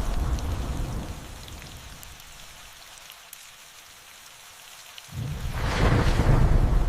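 Thunderstorm rain with thunder. A rumble of thunder dies away over the first couple of seconds, leaving steady rain with scattered drips. About five seconds in, a new thunderclap breaks in suddenly and rumbles on loudly.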